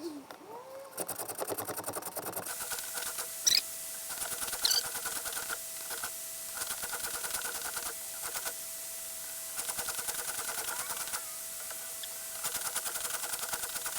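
Chainsaw chain being hand-filed: quick, rhythmic rasping strokes of a file across the chain's cutter teeth, heaviest about a second in and again near the end.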